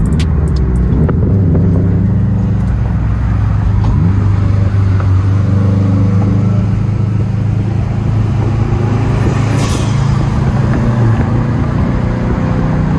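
A car engine running while driving: a steady low drone, with a short rise in pitch about four seconds in.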